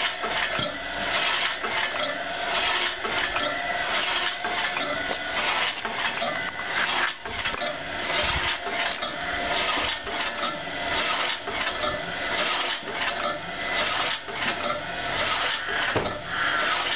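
Homemade mechanical log splitter running empty: its 1.5 kW electric motor and reduction gearbox whirring steadily with constant metallic clatter as the wedge arm turns at about 40 rpm.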